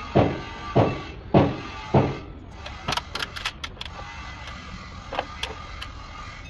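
Four heavy knocks about 0.6 s apart, each with a short ringing tail, followed by a run of lighter sharp clicks and taps.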